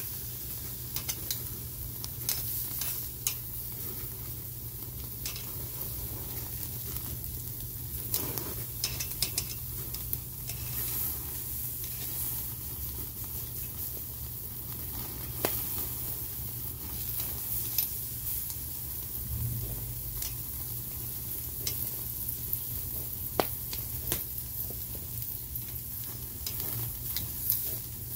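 Picanha steaks sizzling on a grate over an open almond-wood fire, a steady hiss with frequent sharp crackles and pops.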